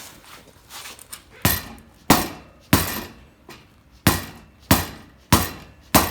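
Seven hammer blows on the drift trike's wheel rim, knocking the rear axle sideways through its bearings to center it; three strikes, a short pause, then four more, each sharp with a brief ring.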